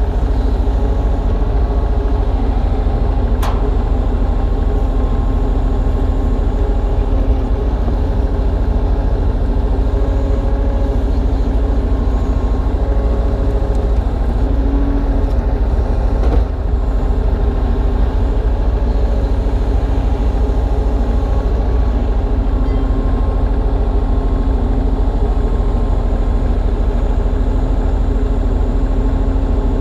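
Kubota U35-3 mini excavator's diesel engine running steadily at working revs while it digs.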